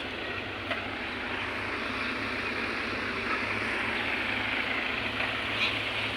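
Heavy diesel vehicle engine running steadily with a low hum, slowly growing louder near the end as it draws closer.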